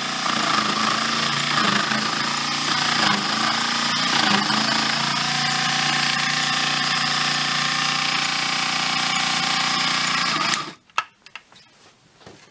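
Unimat 1 toy lathe's small motor, set up as a drill press, running steadily with a whine while a drill bit bores into a softwood block. The motor stops suddenly near the end, followed by a sharp click.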